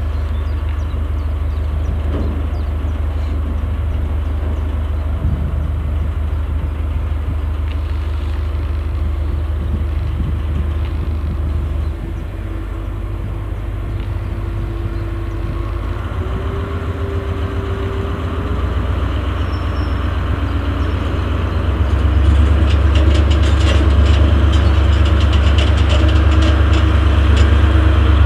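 Diesel-hydraulic shunting locomotive (DB V90 / class 294) running with a steady low engine hum, then louder from about 22 s in as the engine revs up, with metallic rattling and clicking.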